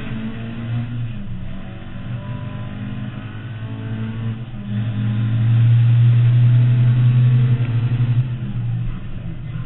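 Mk2 Escort's 2.0-litre Ford Pinto four-cylinder on 45 carburettors, heard from inside the stripped cabin, running hard through a lap. It gets much louder from about five seconds in and drops back near the end.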